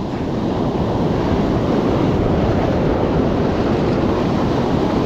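Ocean surf washing onto a beach, with wind buffeting the microphone: a steady rushing noise.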